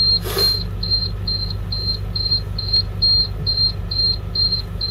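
An electronic warning beeper sounding a short high-pitched beep a little over twice a second, steady and unbroken. Under it is the low drone of the school bus's diesel engine idling, and there is a short hiss just after the start.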